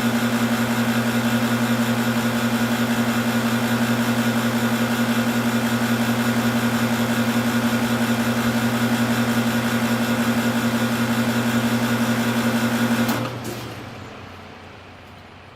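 Electric compressor running with a steady hum, then switched off about 13 seconds in, its sound dying away as the motor winds down.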